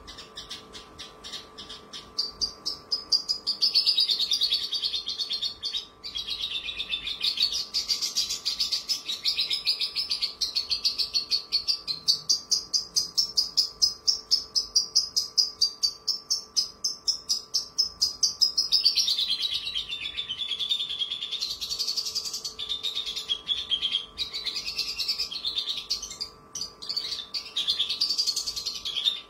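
Caged Javan bush lark (branjangan) singing a long, near-continuous song of rapid, high repeated notes, starting about two seconds in. A faint steady hum runs underneath.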